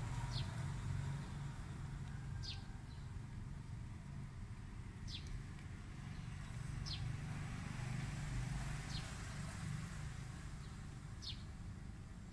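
A small bird repeating a short, high, falling call about every two seconds, over a steady low rumble.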